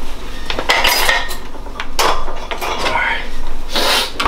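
Cutlery and dishes clinking and clattering in an open dishwasher's rack and cutlery basket as utensils are rummaged through and one is pulled out, in several short clatters with the longest near the end.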